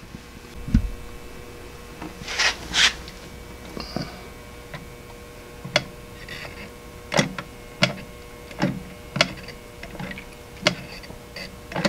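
Lead pouring with a bottom-pour lead pot and an aluminium lure body mold, one cavity at a time: two short scrapes about two and a half seconds in, then a string of sharp metallic clicks and taps roughly once a second as the mold is moved along under the spout. A faint steady hum runs underneath.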